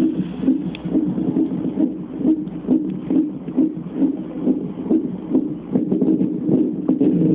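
Fetal heartbeat played through a CTG monitor's Doppler ultrasound transducer: a fast, regular pulse of a little over two beats a second.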